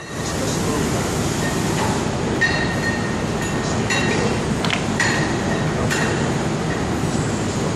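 Steady rumbling background noise, with a few short metallic pings and clicks as parts of a thin etched metal sheet are bent and worked free by hand.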